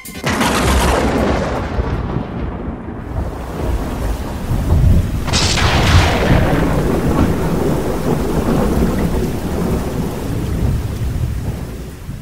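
Thunderstorm: a clap of thunder right at the start and a second sharp crack about five seconds in, each rolling off into a long rumble, over steady rain. It fades out near the end.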